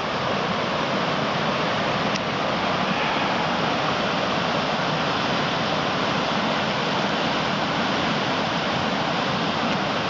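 Mountain creek rushing over rocks and small waterfalls: a steady, loud wash of running water.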